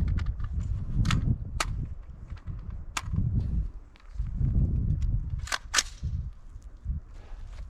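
Gunshots: about five sharp cracks at irregular spacing, two of them close together a little before six seconds in, over low rumbling noise.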